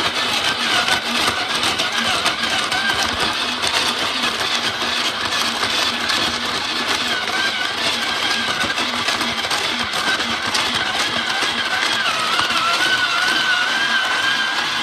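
Electric Hawaiian Shaved Ice machine running, its blade shaving a block of ice as the lid is pressed down. A steady grinding whine that wobbles in pitch near the end.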